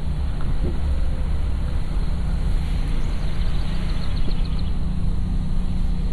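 Steady low rumble of a car driving slowly, engine and tyre noise heard from inside the vehicle, with faint high chirps about halfway through.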